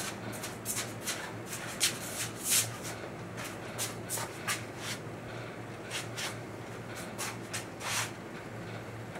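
HO scale model freight trains rolling on a layout: irregular clicks and rattles of wheels over the rail joints, the loudest about two and a half seconds in and near the end, over a steady low hum.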